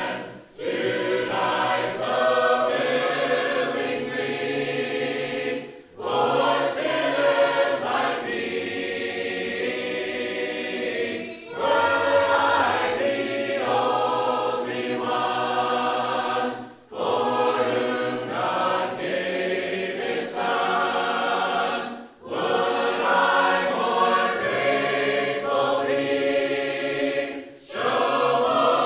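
Church congregation of men and women singing a hymn a cappella, with no instruments, in phrases of about five seconds with a short breath between each.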